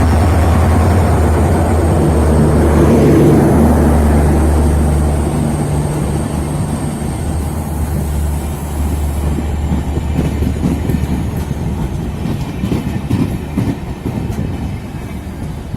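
A train passing close by. A locomotive's steady low hum is loudest in the first few seconds, then the coaches roll past with wheels clattering over the rail joints.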